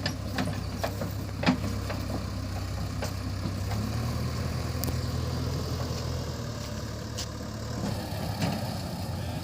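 Heavy diesel engine running at idle, a steady low hum that rises slightly about four seconds in and settles back near the end, with scattered clicks and knocks over it.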